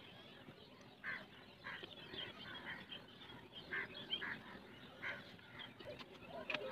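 Faint honking bird calls, short and repeated about once a second.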